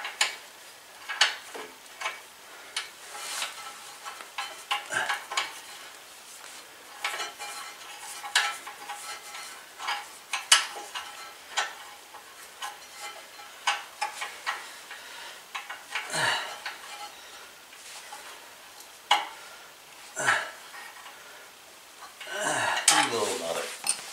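Metal hand tools and bolts clinking and scraping irregularly against a riding mower's engine as the exhaust is fitted by hand, with short sharp clinks, some ringing briefly.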